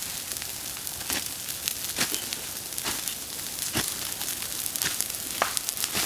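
Forest ground fire burning through dry grass and undergrowth: a steady hiss with irregular sharp crackles and pops.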